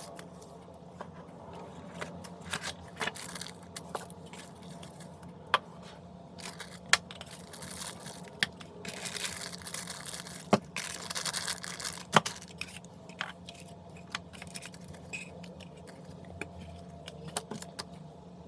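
Dash cam packaging and small plastic parts being handled: scattered sharp clicks and taps, with a stretch of rustling and tearing from about nine to twelve seconds in.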